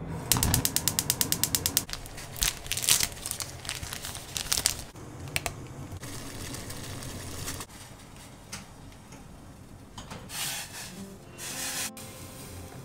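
Gas stove burner's igniter clicking rapidly, about nine clicks a second for a second and a half, as the burner is lit, followed by a few clatters. Then water bubbling at a rolling boil in a stainless pot, and near the end hot water poured from the pot onto a drip-bag coffee in a mug in two short splashes.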